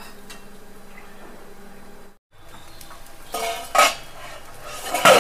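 Metal utensil scraping against a cast-iron dosa pan. The scrapes come twice, about three and a half seconds in and again near the end, over a faint steady background.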